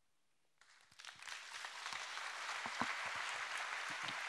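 Audience applauding, starting about a second in after a short silence and then holding steady as a patter of many hand claps.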